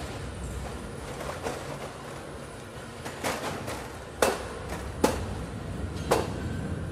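Plastic drink crates full of bottles being handled and stacked: a few sharp knocks about a second apart in the second half, over a steady low hum.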